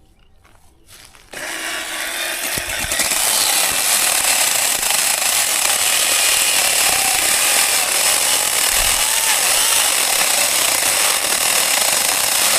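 Chainsaw starting up about a second in and running steadily at full speed, a little louder from about three seconds in, as it cuts into a small tree.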